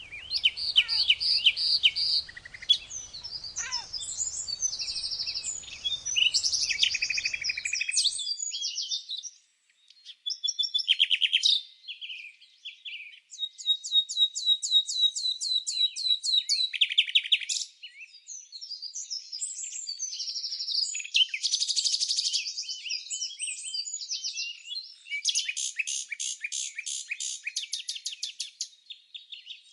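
Small songbirds chirping and singing, with repeated rapid high trills and quick chirp phrases. A faint background hiss sits under the first part and stops abruptly about a third of the way through.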